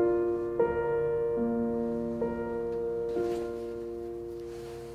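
Background piano music: slow, held notes that fade out toward the end.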